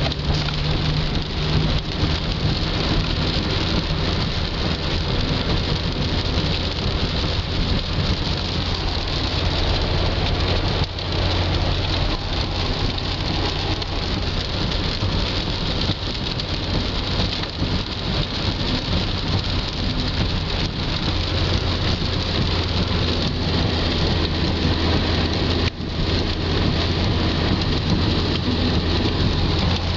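Heavy rain falling on a car's roof and windshield, heard inside the cabin, with the steady low drone of the car driving on a wet road.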